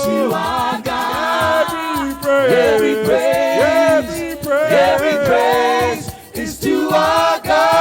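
Live gospel worship music: sung voices hold and slide between notes over the band, with a steady beat.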